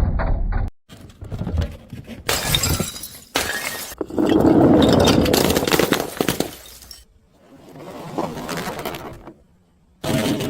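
Glass bottles smashing and shattering, several separate breaks one after another, each followed by a spell of shards scattering.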